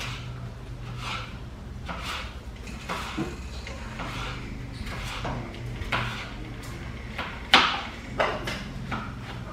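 Kitchen knife cutting vegetables on a cutting board, with sharp knocks at an uneven pace of about one a second. The loudest knock comes about three-quarters of the way through.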